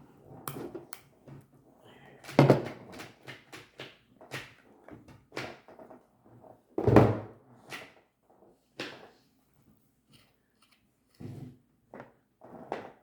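Irregular knocks and taps of small objects being handled against a tabletop, with two loud thunks about two and a half and seven seconds in.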